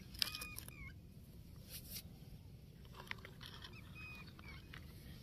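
A plastic toy dump truck pushed by hand through loose sand, with faint scraping and light clicks. Two clusters of faint, short high calls from an animal sound in the background, one near the start and one about two-thirds through.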